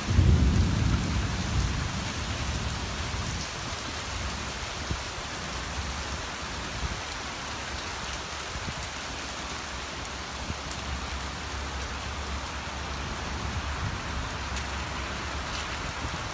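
Heavy rain pouring steadily over streets and trees, with a louder low rumble during the first couple of seconds.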